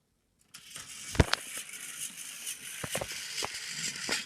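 Small plastic toy engines being pushed and scraped against each other, a steady scraping rattle with sharp plastic clacks, the loudest just over a second in.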